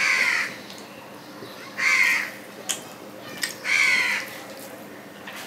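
A crow cawing three times, roughly two seconds apart, each caw harsh and about half a second long.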